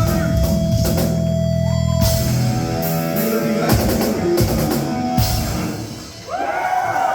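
Live rock band playing, with drum kit and electric guitar over a held low note. The music dips briefly about six seconds in, then comes back in.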